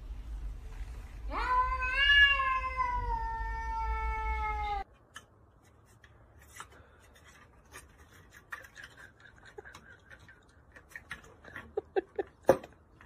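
House cat giving one long drawn-out meow that rises and then slowly falls in pitch, cut off abruptly about five seconds in. After that there are only faint scattered clicks and taps.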